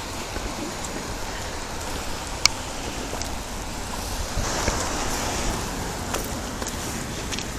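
Steady hiss of falling rain, with a single sharp click about two and a half seconds in and a brief swell of hiss a little past the middle.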